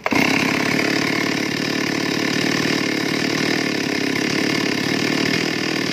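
Stihl MS 381 chainsaw's two-stroke engine running at a steady speed without revving.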